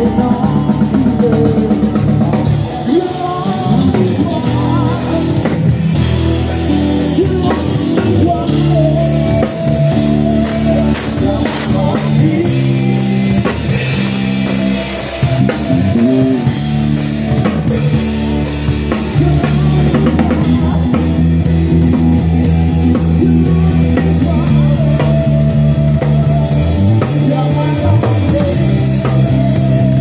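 Live rock band playing through PA speakers: a drum kit with bass drum and cymbals keeping a steady beat under electric and acoustic guitars.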